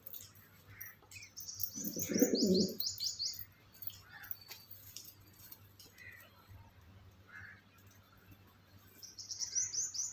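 Domestic pigeons cooing once, about two seconds in. Quick runs of high chirps from a small bird come around the same time and again near the end.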